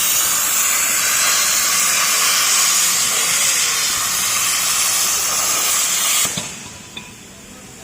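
CNC plasma cutting torch cutting steel H-beam, a loud steady hiss that cuts off abruptly about six seconds in, leaving a faint background hum.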